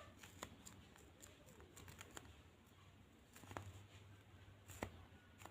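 Near silence: a faint low hum with a few soft, scattered clicks.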